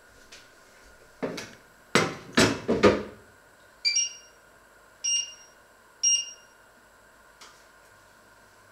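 A steel frying pan set down on the glass-ceramic top of an electric stove, clattering several times, then three short electronic beeps about a second apart from the stove's controls.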